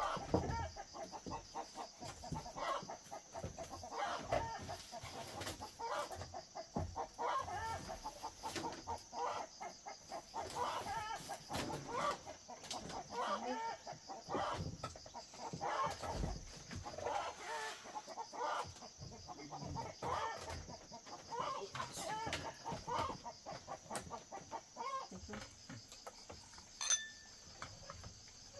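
Chickens clucking repeatedly in short calls, over a steady high drone of insects.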